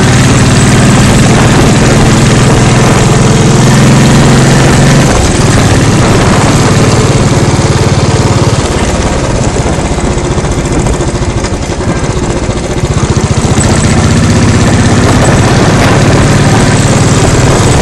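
Motorcycle engine running while the bike is ridden, heard from the saddle. The engine note is strong and steady at first, changes about five seconds in, and picks up again near the end.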